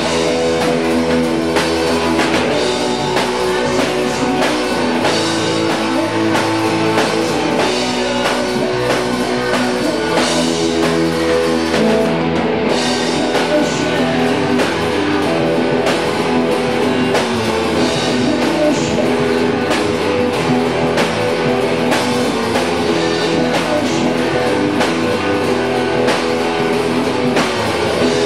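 Live band playing a laid-back blues-rock jam on electric guitars, bass guitar and drum kit.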